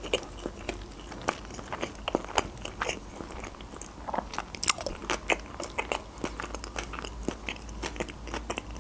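A person chewing a mouthful of sushi roll with the mouth closed, a run of small irregular wet clicks and smacks.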